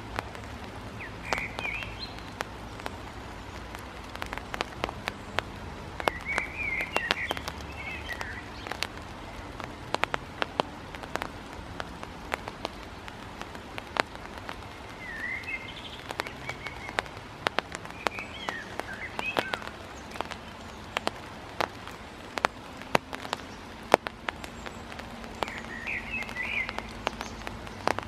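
Irregular sharp taps of a great tit's beak pecking at a hawk-moth caterpillar pinned to the ground. Brief high chirping bird calls come in several times: about a second in, around seven seconds, twice in the middle, and near the end.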